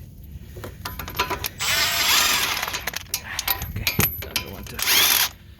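Impact gun fitted with a 22 mm socket running in two bursts, a longer one of about a second and a half starting about a second and a half in and a short one near the end, its motor pitch rising and falling. Metal clicks and clinks of tools in between.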